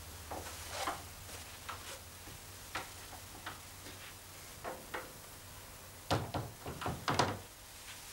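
Wooden door being opened and pushed shut: scattered soft clicks and knocks from the latch and door, with a quick run of louder knocks about six seconds in.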